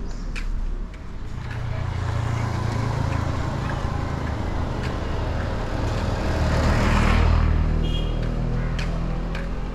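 A road vehicle's engine running close by, a low steady hum that swells to its loudest about seven seconds in as the vehicle passes.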